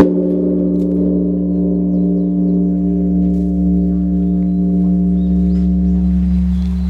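Large bronze Buddhist temple bell struck once: a sharp hit, then a long ringing of several steady tones over a deep hum, the tones wavering as they slowly fade.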